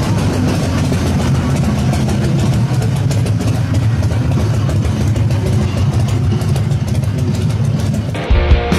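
Custom bagger motorcycle's engine running loudly and steadily, with music mixed underneath. About eight seconds in, rock music with drums and guitar takes over.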